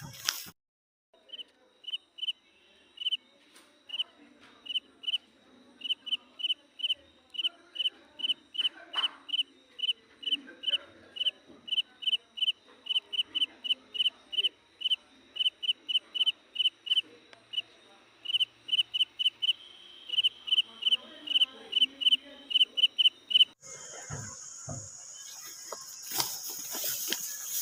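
An insect chirps steadily in short high chirps, about two to three a second, then stops abruptly near the end, where a hiss with a few knocks takes over.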